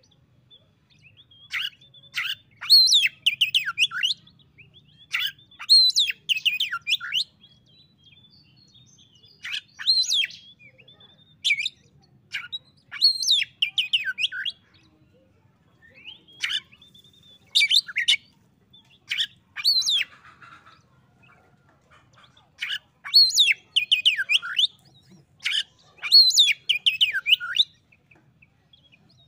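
Oriental magpie-robin (kacer) singing: fast runs of high, varied whistles, many sliding downward, in phrases of a second or two with short pauses between.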